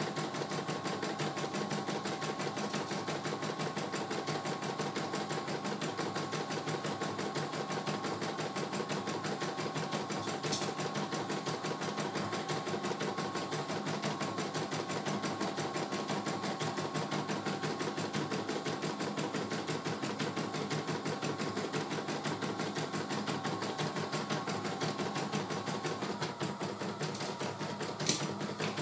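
CNY E900 computerized embroidery machine stitching a design: rapid, even needle strokes over a steady motor hum, with a sharp click about ten seconds in and another near the end.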